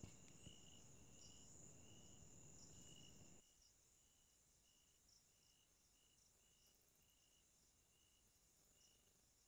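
Near silence: a faint hiss that cuts off abruptly about three and a half seconds in, then dead silence, with only very faint high chirps repeating at an even pace.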